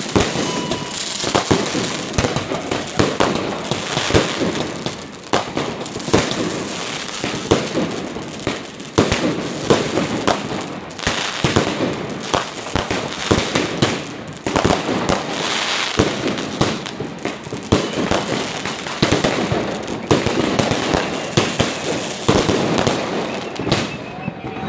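Fireworks going off in a dense, continuous barrage: many bangs and crackles overlapping one another without a break, thinning out near the end.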